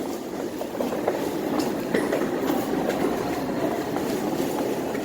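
Passenger train running, a steady rumble with scattered clicks and rattles.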